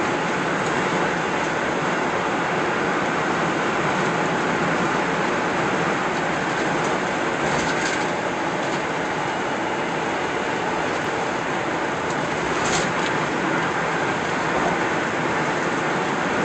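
Steady road and tyre noise from a car cruising on a freeway, heard from inside the cabin.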